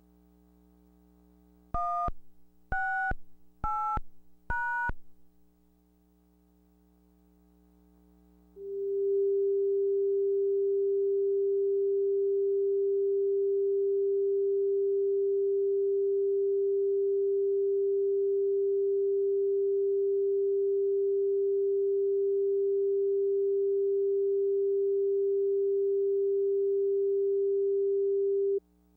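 Four short chime-like notes about a second apart, each at a different pitch and fading quickly. After several seconds of faint low hum, a steady single-pitch broadcast test tone sounds for about twenty seconds and cuts off suddenly near the end.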